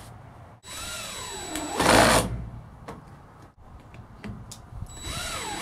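Cordless drill driving screws into the wooden rail frame, twice: each time the motor whine swings up and down in pitch as it spins up, then gets louder as the screw drives in, about two seconds in and again near the end.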